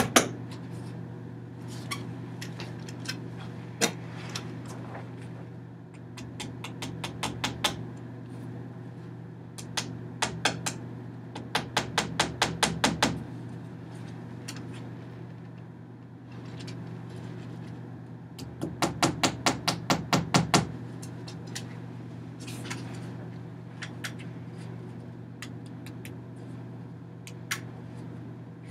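Runs of rapid hand-made tapping, about six sharp taps a second, each run lasting one to two seconds with single taps in between, over a steady low hum.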